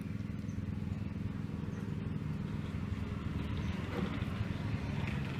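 A motor running steadily: a low, evenly pulsing hum. Faint light clicks come about four seconds in.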